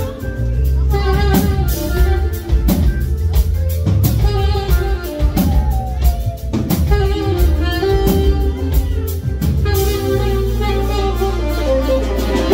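Live band playing loud, with a saxophone carrying the melody over drum kit, bass and keyboards.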